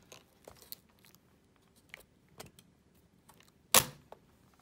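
Plastic clips of a Sony Vaio laptop's top case clicking and creaking as it is prised off by hand, with one loud sharp snap near the end as a clip lets go.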